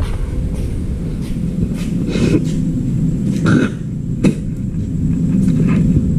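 Handling noise: a steady low rumble with a scattered series of short knocks and clunks as objects are moved about on a concrete floor.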